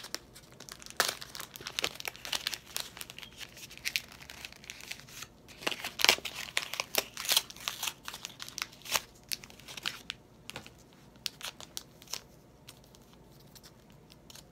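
Cardboard-and-plastic blister packaging of a Pokémon booster pack being torn and crinkled open by hand: a long run of irregular crackles and rips, busiest about halfway through.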